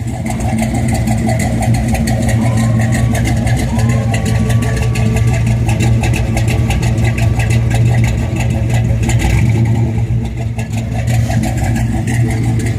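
1961 Chevy Impala SS's 409 big-block V8 idling steadily with its headers opened.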